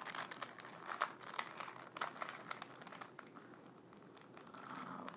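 Plastic Rubik's cube being turned by hand: irregular clicks and clacks as its layers rotate, thinning out for a moment about three seconds in.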